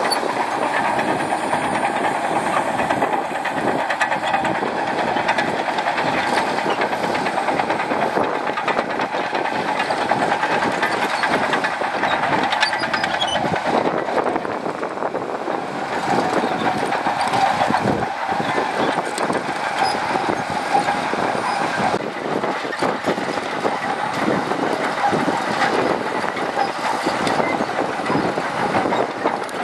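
Shantui DH17C2 crawler bulldozer working sand: its diesel engine running steadily under load over a continuous clatter of steel tracks.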